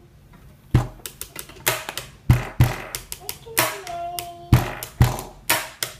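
A run of about ten sharp hand slaps or claps at an uneven beat, starting under a second in.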